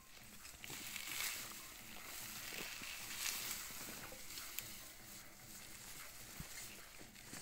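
Rustling of cassava stems and leaves as cassava plants are pulled up by hand, with soil breaking loose and a few light knocks.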